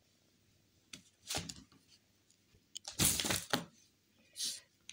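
Handling and rustling noise: a click, then several short scraping rustles, the loudest about three seconds in.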